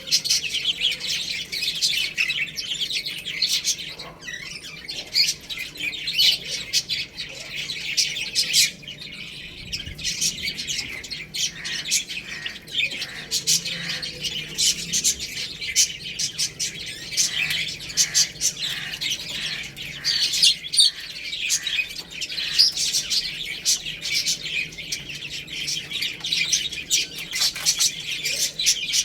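A flock of baby chicks chirping continuously, with many short high peeps overlapping without pause.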